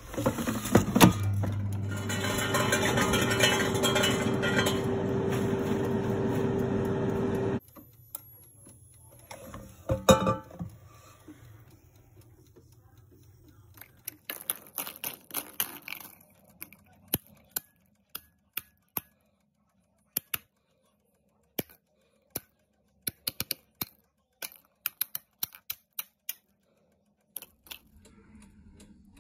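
Air fryer fan running steadily with a hum, cutting off suddenly after about seven and a half seconds. A few loud knocks follow, then a long scatter of short, light clicks and clinks.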